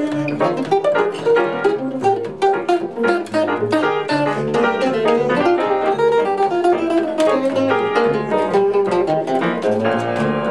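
Hollow-body archtop electric jazz guitar playing a fast run of single notes, with upright bass notes underneath.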